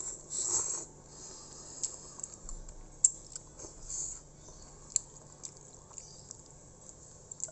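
Slurping of boiled instant noodles (Indomie soto), a short noisy burst near the start, then chewing with scattered small wet mouth clicks.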